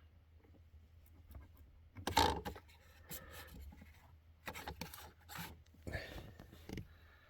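Plastic battery terminal cover and its clips being worked open by hand: several short scraping, rubbing bursts, the loudest about two seconds in.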